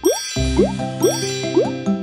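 Bouncy children's background music, its tune punctuated about twice a second by short rising sliding notes like cartoon boings.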